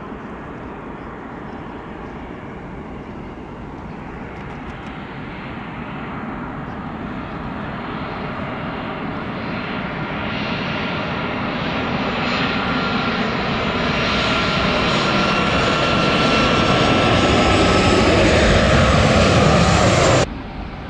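Boeing 737-800 jetliner's CFM56-7B turbofan engines on final approach, growing steadily louder as the jet comes close, a broad rumble with a steady high whine over it. The sound cuts off abruptly near the end.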